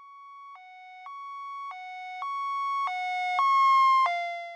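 Ambulance two-tone siren, alternating high and low notes about every half second. It grows louder, then fades with a slight drop in pitch as the ambulance passes.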